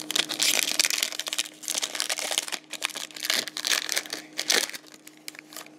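Foil wrapper of a 2020 Donruss Optic football card pack crinkling as it is handled and torn open. The crackling is dense for most of the stretch and dies down near the end.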